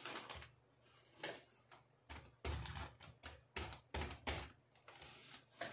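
Kitchen knife cutting and prying at an opened durian's spiky husk: a string of irregular clicks and knocks, several with a dull low thump, coming thicker from about two seconds in.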